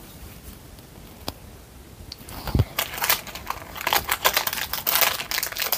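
Clear plastic packet of clay crinkling and rustling as it is handled, starting about two and a half seconds in, just after a soft thump.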